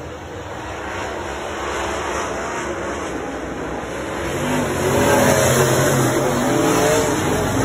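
Dirt late model race cars' engines running at speed on the track, getting louder about halfway through as the cars come past close by, the engine note rising and falling.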